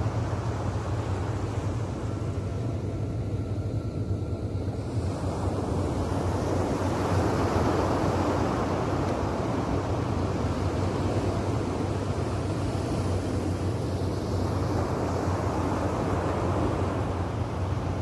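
Small ocean waves breaking and washing up a sandy beach in a steady rush of surf, swelling louder a few seconds in and easing off near the end. A low rumble of wind on the microphone runs under it.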